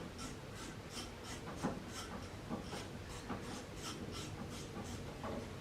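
Ratchet clicking steadily, about three light clicks a second, as a brake-cylinder bolt is wound out.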